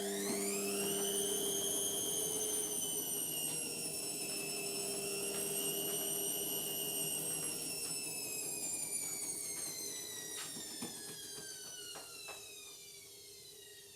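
Indesit washing machine's motor whining high as the drum spins up on a spin, holding speed, then winding down with a steadily falling pitch over the last several seconds. A few light clicks come as it slows, over a low steady hum.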